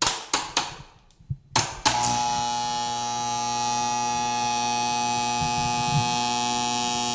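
Electricity sound effect: a few sharp crackling zaps of arcing current in quick succession, then a steady, loud electric buzz with a hissing edge that holds for about five seconds and cuts off abruptly.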